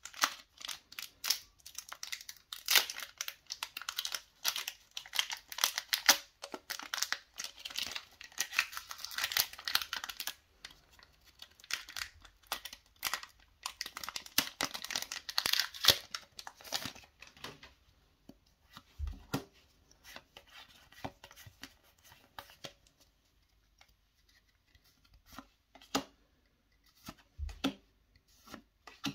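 Foil wrapper of a Pokémon trading-card booster pack being torn open and crinkled, a dense crackling that lasts about the first two-thirds. After that only scattered light taps are heard as the cards are handled.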